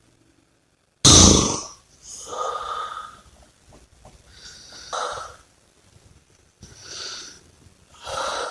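Person snoring and breathing heavily in sleep. A sudden loud snort comes about a second in, then four shorter, quieter breaths follow about every two seconds.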